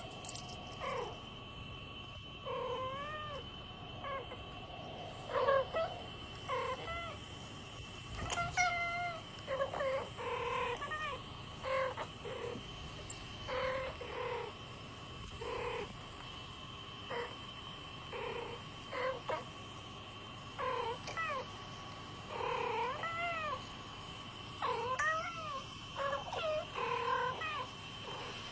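Cats trading short, bending meow-like calls back and forth, one every second or so. A steady faint high whine runs underneath.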